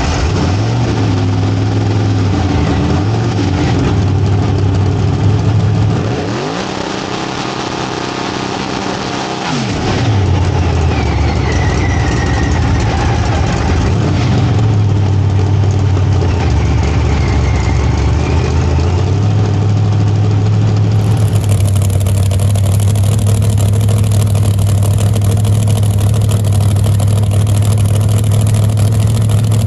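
ProCharger-supercharged Pro Line 481X big-block engine in a Pro Mod Camaro running just after start-up, revved up and down a few times with the supercharger whine rising and falling, then settling to a steadier loping idle.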